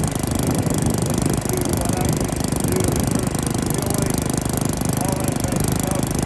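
Troy-Bilt Bronco tiller's small engine running steadily with a rapid, even firing rhythm.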